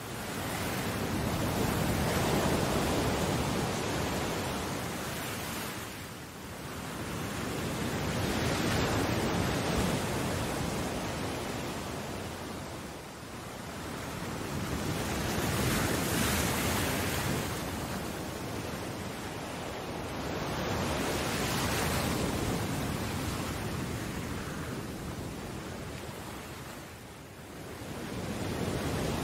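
Sea waves: a steady rush of surf that swells and ebbs slowly, five times, about every six to seven seconds.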